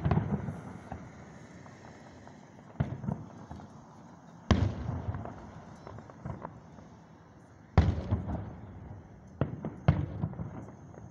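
Aerial firework shells bursting, about six sharp booms a second or few apart, each trailing off in a low rumble.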